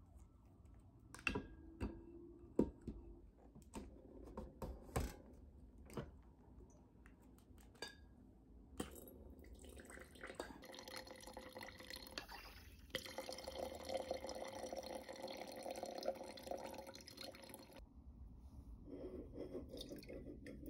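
Several sharp clicks and knocks as a device is fitted onto a corked wine bottle. Then red wine streams into a large wine glass for about seven seconds and stops abruptly.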